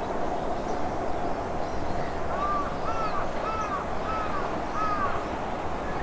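A crow cawing five times in an even series of short, arched calls, starting about two seconds in. Under it runs the steady rumble of the passing electric train.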